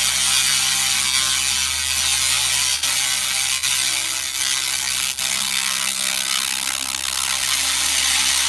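Handheld laser cleaner ablating decades-old burnt-on carbon from a pressure cooker's metal base: a steady, rapid buzzing crackle over a steady low hum.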